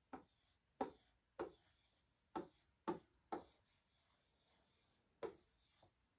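Stylus tapping and scraping on the glass of an interactive touchscreen while words are handwritten: about seven short, faint strokes, each a quick tap followed by a brief scrape.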